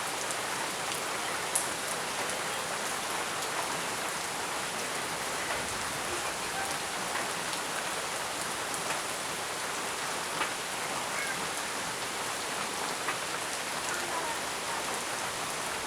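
Heavy rain falling steadily, a dense even hiss with occasional individual drops ticking sharply on hard surfaces.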